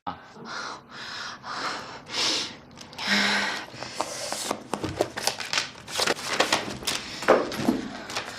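A person sneezing and sniffing in short breathy bursts, with a stronger sneeze about three seconds in. After that comes a rapid, irregular run of sharp clicks and taps.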